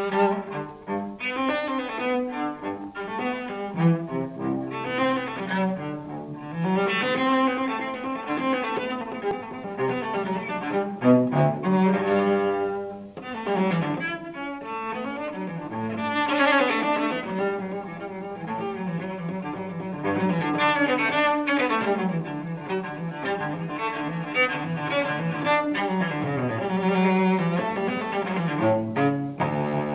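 Cello music: a bowed cello melody that starts abruptly and plays on steadily.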